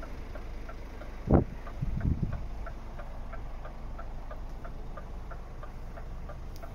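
Scania R500 truck cab's indicator flasher ticking evenly, about three ticks a second, over the low steady hum of the idling engine. A single sharp knock comes about one and a half seconds in, with a few softer thumps just after.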